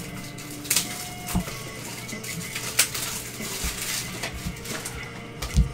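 Baseball trading cards handled by gloved hands: a few light clicks and rustles as cards are sorted and slid against each other, over a low steady hum.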